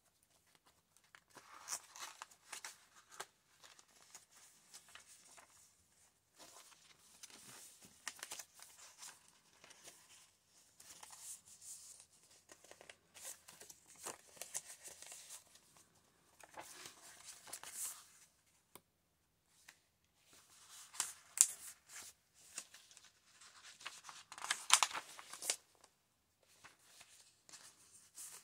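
Pages of a handmade junk journal, scrapbook paper and card, rustling and flapping as they are turned and handled, with sharper crisp rustles about three-quarters of the way through.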